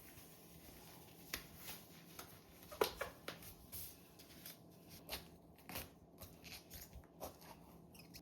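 Faint handling noises: scattered soft clicks and light rustles at irregular intervals, the loudest about three seconds in.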